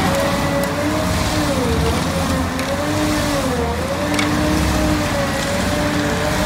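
Cat 308 E2 CR mini excavator running with a hydraulic stump grinder attachment grinding a tree stump into wood chips. A steady whine dips and recovers in pitch several times over the engine's low drone, with a few sharp clicks.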